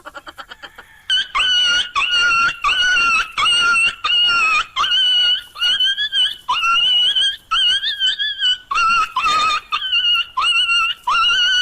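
A small dog yelping over and over in high-pitched cries, about two a second, starting about a second in.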